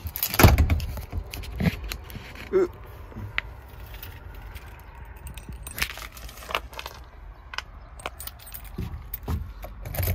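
Keys jangling and the clicks and clunks of a door lock being worked as a door is shut and locked, with a heavy thump about half a second in.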